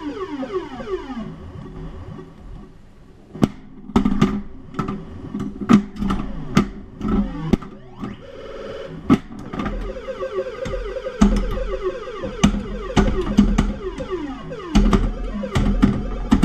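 1980 Stern Stargazer pinball machine in play: electronic sound effects of repeated falling tones, with a warbling held tone about halfway through, over frequent sharp clicks and knocks from the playfield. There is a brief quieter lull early on.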